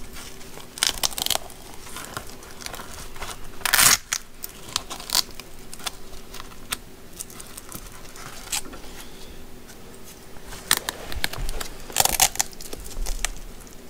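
Rustling and crinkling of new split-leather welding gloves being handled, flexed and turned over, in irregular bursts with the loudest about four seconds in and again near the end.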